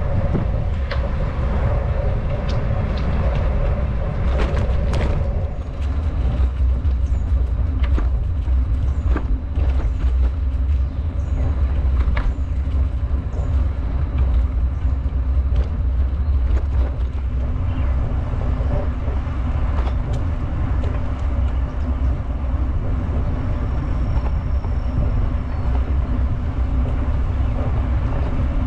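Steady wind rumble on the microphone of a camera riding on a moving bicycle, with tyre noise on pavement and scattered sharp knocks and rattles from bumps in the trail, most of them in the first half.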